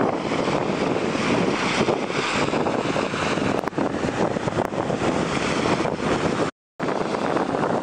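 Small waves breaking and washing up a gritty sand beach, a steady hiss of surf and foam. The sound cuts out completely for a moment about two-thirds of the way through.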